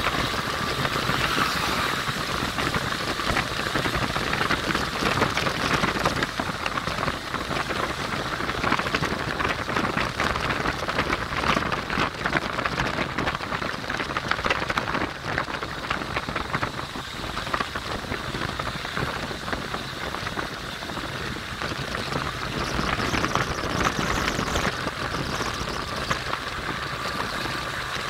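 Steady rushing wind and road noise from a moving car, heard from inside the car.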